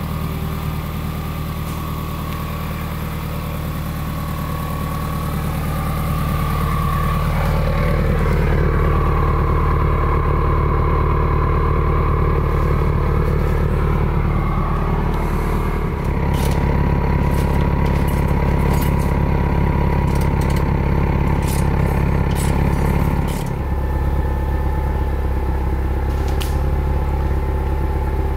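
Subaru WRX's turbocharged flat-four idling steadily through a newly fitted Tomei Expreme titanium single-exit exhaust, run so it can be checked for an exhaust leak. The idle note changes about halfway through, and a few sharp clicks come in the second half.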